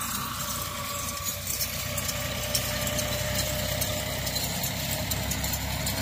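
An engine running steadily at low speed, with the scattered light clicks of a goat herd's hooves on dry dirt.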